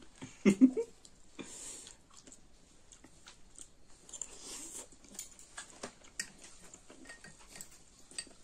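Close-up chewing of soft, juicy mulberries: wet mouth sounds and small clicks, with light taps of metal spoons against glass bowls. A brief vocal sound comes about half a second in.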